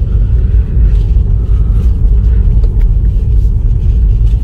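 Steady low road and tyre rumble of a 2020 Tesla Model 3 driving, with no engine note since the car is electric.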